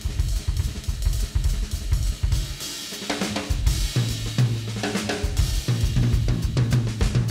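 Background music with a drum kit playing a steady beat; a bass line comes in about four seconds in.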